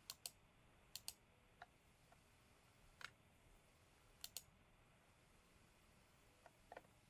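Faint computer mouse clicks, a dozen or so scattered, several in quick pairs, over near silence.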